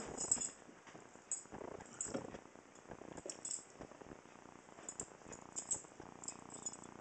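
A German shorthaired pointer puppy and a cat scuffling, with the puppy's collar tags jingling in short bursts. About six seconds in, a low steady rumble sets in.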